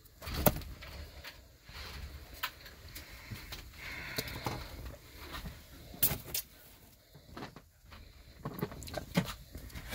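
Pet rat moving about inside a cardboard maze: scattered scratches, taps and rustles of its claws and body against the cardboard.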